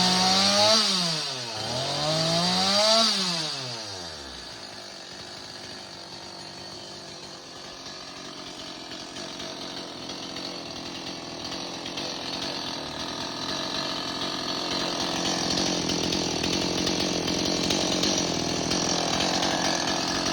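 Stihl MS 260 two-stroke chainsaw revved at high speed, dropping and rising in pitch twice in the first three seconds, then winding down about four seconds in. A quieter, steady mechanical running noise follows and grows slowly louder.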